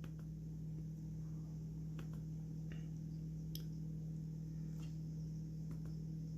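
A handful of faint, scattered computer-mouse clicks over a steady low electrical hum.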